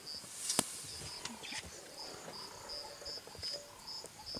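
Insect chirping in a steady rhythm of short, high chirps, about two a second, with one sharp click about half a second in.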